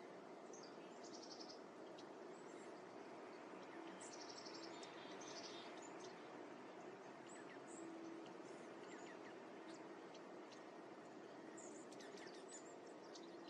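Small birds chirping faintly in short, high bursts, with clusters about half a second in and around four seconds in, over a steady background hiss.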